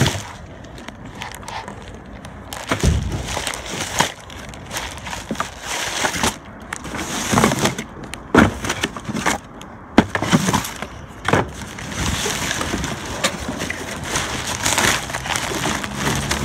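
Plastic garbage bags and loose trash being rummaged through by hand: steady crinkling and rustling broken by irregular knocks and cracks as items are shoved aside.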